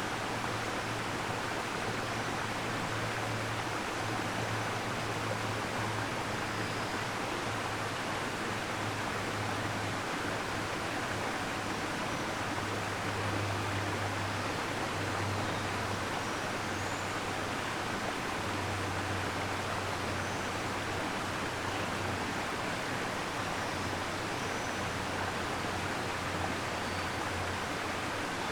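Waterfall: a steady rush of falling water, with a low rumble underneath that swells and fades.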